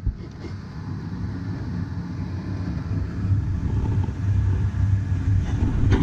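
Lennox ML193 gas furnace's blower running with a steady low rumble.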